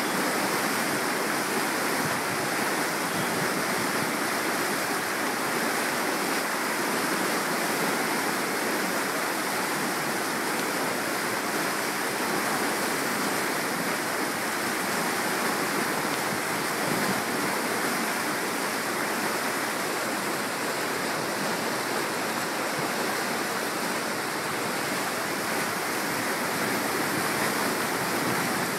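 Steady, unbroken rush of flowing water, like water pouring through a lock's valves or over a weir, holding the same level throughout.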